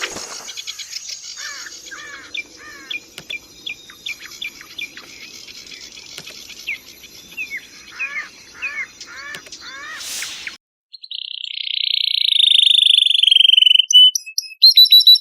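Songbird song recordings: repeated arching chirps over a faint hiss. About ten and a half seconds in, after a brief break, a louder recording starts with a harsh buzzing trill, then quick varied notes.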